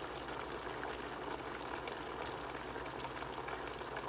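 Steak strips with peppers and carrots simmering in sauce in a stainless steel pot: a steady bubbling hiss with faint small pops.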